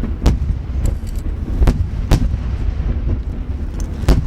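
Barrage of shakudama (12-inch, 30 cm) firework shells in rapid succession: several sharp booms, a few of them loud and close, over a constant low rumble of echoing explosions.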